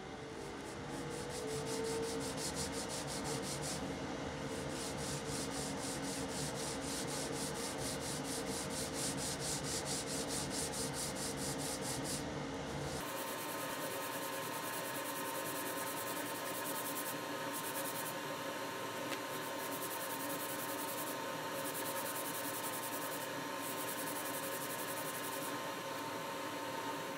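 A steel ruler rubbed back and forth on a sheet of sandpaper, a rhythmic scratching of several strokes a second, over a steady hum.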